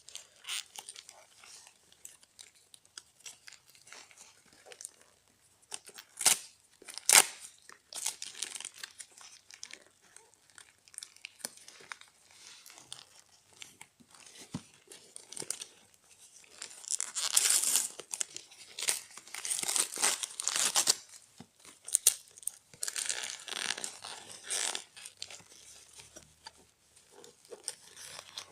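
Packaging of a watch box being handled and opened: crinkling and tearing in irregular bursts, with two sharp knocks a few seconds in and longer, louder stretches of crinkling past the middle.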